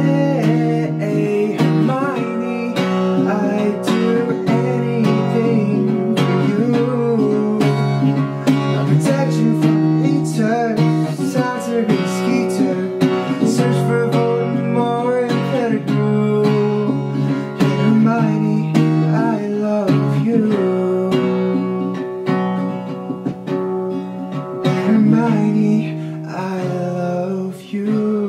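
Small-bodied steel-string acoustic guitar strummed through a song, with a man singing over it. The playing grows softer near the end.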